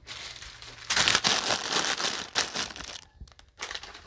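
Plastic snack and instant-noodle packets crinkling as they are handled and packed into a plastic storage bin. The crinkling is loudest in the middle and pauses briefly about three seconds in.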